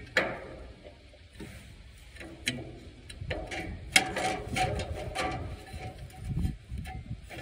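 Hand tools on a tractor's steel dash panel while bolts are tightened: a few sharp metal knocks, the loudest about four seconds in, and a run of quick ratchet-like clicks in the middle, over a low rumble.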